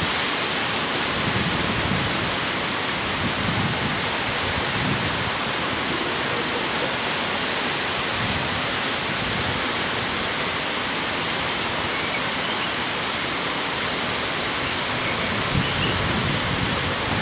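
Heavy downpour falling steadily: a dense, even hiss of rain on the street and lawn.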